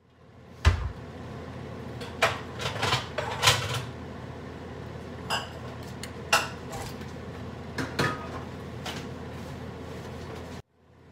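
A wooden spoon and dishes knocking and clinking against a stainless steel soup pot: about a dozen separate knocks and clinks, the heaviest about a second in, over a steady low background noise.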